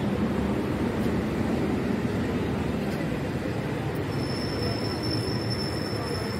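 Steady low rumble of outdoor street background noise. About four seconds in, a thin, high, steady whine or squeal joins it.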